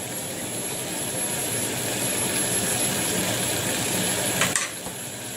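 Bamboo shoots, water chestnuts and garlic frying in a saucepan on a gas hob: a steady sizzling hiss, with a single light knock about four and a half seconds in.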